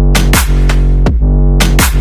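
Loud electronic dubstep music with a heavy bass line and a steady punchy beat.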